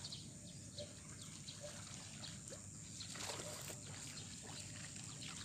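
Faint outdoor background of a city pond: a steady low hum of distant traffic, with small scattered chirps and ticks over it.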